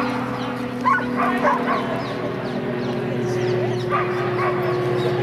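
Dogs barking and yipping in short bursts, a cluster of barks about a second in and more near four seconds, over a steady low hum.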